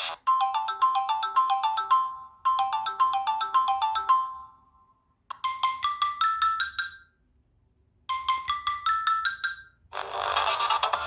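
Samsung Galaxy Young S6310 ringtones played in turn. First a short melody of bright, quickly decaying notes, played twice. Then two short rising phrases of a few notes each, with silent gaps between them. Near the end a busier electronic tune starts.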